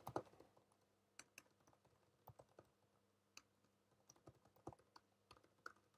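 Faint keystrokes on a computer keyboard, typed in short, irregular runs.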